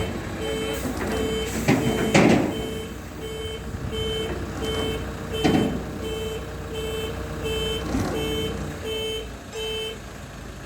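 A vehicle's reversing alarm beeps evenly, about three beeps every two seconds, over a running engine, and stops near the end. Several sharp knocks cut across it, the loudest about two seconds in.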